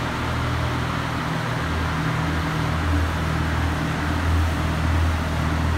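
2005 Lamborghini Gallardo's 5.0-litre V10 idling steadily, a low even hum with no revving.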